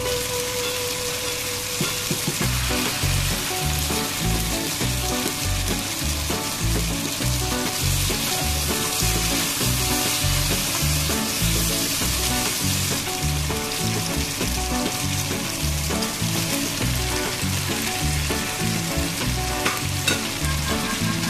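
Chicken and bell pepper strips sizzling in a hot wok as they are stir-fried, a steady frying hiss, with background music carrying a stepping bass line from a couple of seconds in. A single sharp knock near the end.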